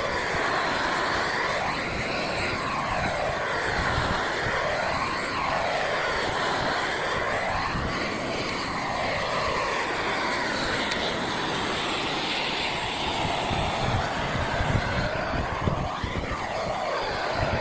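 Propane torch (a flamethrower-style weed burner on a propane tank) burning with a steady roar while it chars wooden gate boards for shou sugi ban. Its tone sweeps up and down every few seconds as the flame is moved along the wood.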